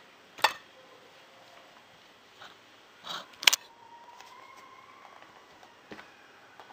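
A few sharp knocks and clatters of kitchen things being handled on a table: a loud one about half a second in, two close together around the middle, and a lighter one near the end. A faint thin whine rises slightly between the knocks.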